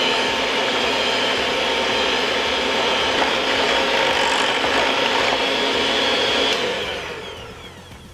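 Electric hand mixer running at a steady speed, its beaters whirring through batter in a glass bowl, then winding down with a falling whine near the end.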